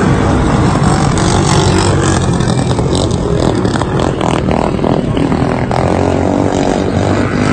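A pack of motorcycles racing on a dirt oval, several engines running hard together at high revs, their pitches rising and falling as the bikes pass.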